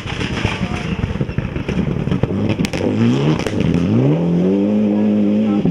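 Mitsubishi Lancer Evolution X rally car's turbocharged four-cylinder engine accelerating hard on a gravel stage, loose stones clattering under the tyres. In the second half the revs climb in pitch through quick gear changes, then hold a steady high note.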